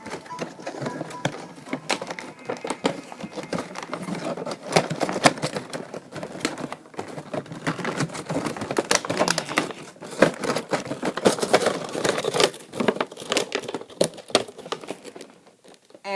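Packaging crinkling and rustling as it is handled during an unboxing, with dense irregular crackles and clicks.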